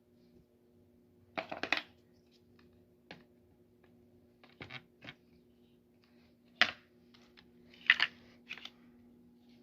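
Plastic parts of an electric fan clicking and knocking together as it is assembled, in several short clattering bursts over a steady low hum.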